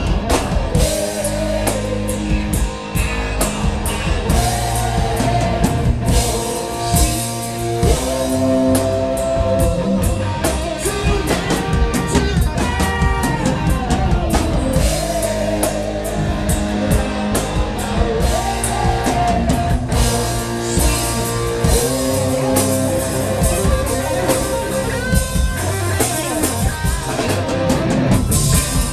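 A live rock band playing loud: drum kit, distorted electric guitar and bass, with a sustained melodic guitar line over a steady beat.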